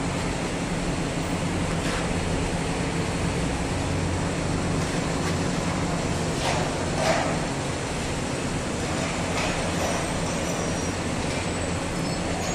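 Steady low machine hum with a constant rumble, from running motor-driven machinery, with a brief knock about seven seconds in.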